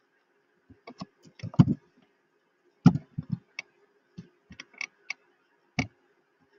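Computer keyboard keystrokes and mouse clicks: a run of irregular short taps in small groups, with a pause of about a second between the first group and the next.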